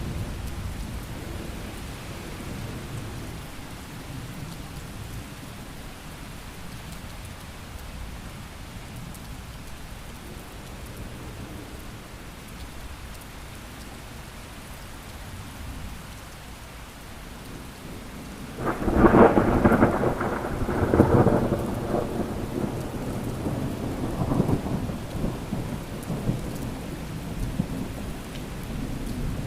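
Thunderstorm: steady rain falling, with a low thunder rumble dying away at the start. About two-thirds of the way in, a sudden loud thunderclap cracks and rolls on for several seconds.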